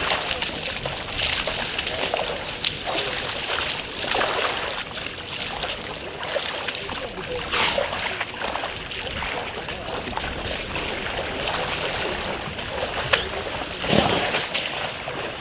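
Elephants wading and drinking in a shallow waterhole: irregular splashes and sloshing water, with louder splashes about four seconds in and again near the end.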